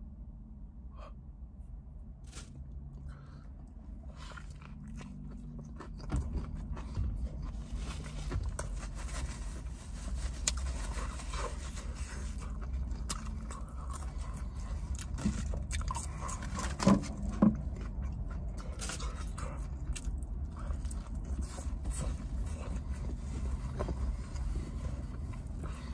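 Close-up chewing and biting of a crispy fried hot chicken sandwich: wet mouth sounds with scattered crunches and clicks, two louder ones past the middle. A low steady rumble comes in about six seconds in.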